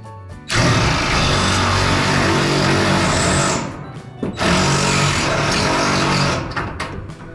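Cordless power shear cutting a ribbed metal roofing panel, running hard in two stretches of about three and two seconds with a brief stop between.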